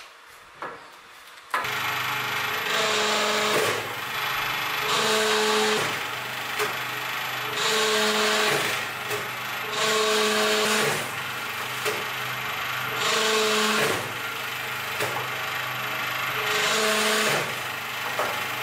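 Hydraulic forging press running under load, its pump tone surging six times as the ram squeezes a hot Damascus billet of gear steel and 4340, forge-welding the stack. Short clicks come between the squeezes.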